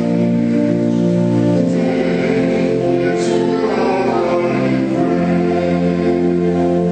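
A choir singing a hymn in held chords that change every second or two.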